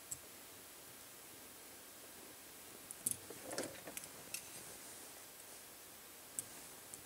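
A few faint clicks and taps of small electronic parts being handled, bunched about three to four and a half seconds in, with one more near the end, over quiet room tone.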